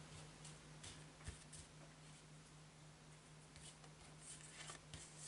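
Near silence: a faint steady low hum, with a few soft rustles and taps as fingertips move over a fanned-out deck of cards on a table.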